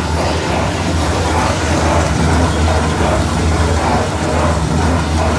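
Roller melangeur running, its two heavy rollers turning through liquid chocolate in the pan, with a steady low motor hum.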